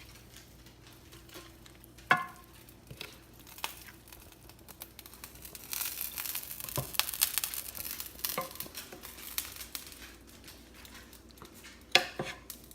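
Chicken being turned in a creamy sauce in a Copper Chef pan. A utensil clinks against the pan about two seconds in and again a few times near the end, with a stretch of sizzling in the middle as the sauce heats back up.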